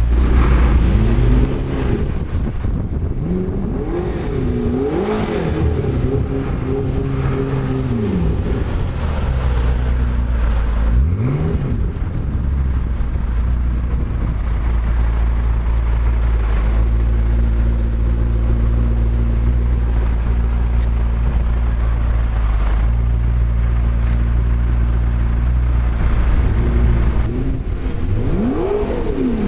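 McLaren MP4-12C's twin-turbo V8 being revved while stationary: several quick blips in the first ten seconds or so, then settling to a steady idle, with one more rev near the end.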